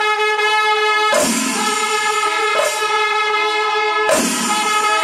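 Kerala temple festival ensemble music: a steady held note with many overtones, punctuated by a loud percussive strike about every three seconds with a softer strike between each.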